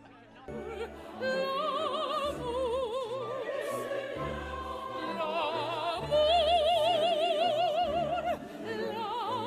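Operatic aria: a high voice singing long notes with wide vibrato over orchestral accompaniment, with short low bass notes in a repeating rhythm underneath.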